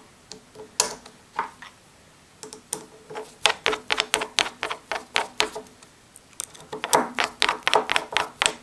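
Irregular clicking and tapping of small metal screws and a hand tool against a 3D-printer extruder body and its stepper motor as the two are screwed together. The clicks come in dense runs, with short pauses about two seconds in and again about six seconds in.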